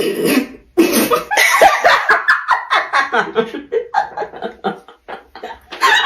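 Loud human laughter in a rapid string of short bursts.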